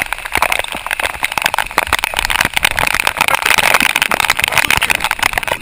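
Heavy rain falling, a dense steady crackle of countless drops.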